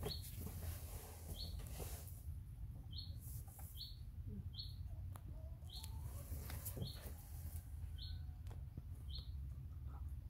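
A small bird chirping over and over, one short high note about every second, over a low steady background rumble.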